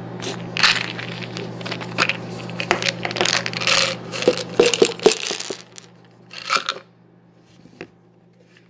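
Plastic vitamin D pill bottle being handled and opened, a string of sharp clicks and rattles, as white tablets spill out and clatter onto a hard table top. One more short rattle comes about six and a half seconds in, then it falls quiet.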